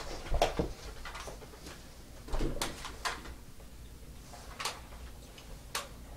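Scattered short knocks, clicks and rustles of people moving about and handling things in a small room, coming irregularly a second or so apart.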